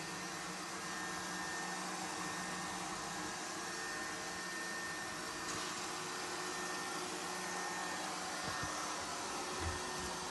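Lefant M330 Pro robot vacuum running, a steady whirring hum of its suction motor and brushes, with a couple of light knocks near the end.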